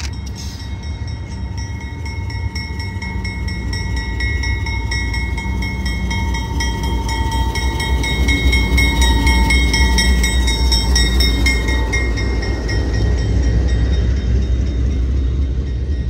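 Norfolk Southern welded rail train rolling by: a deep rumble that grows louder over the first several seconds, with steady high whining tones above it that fade out near the end.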